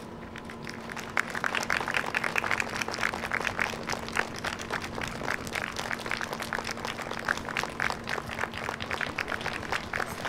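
Audience applauding: many hands clapping, starting about a second in.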